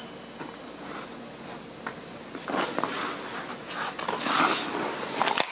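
Goalie skate blades scraping and cutting the ice in a run of short hissing strokes as the goaltender pushes across the crease, loudest a little past halfway, with a few sharp clicks of stick or puck.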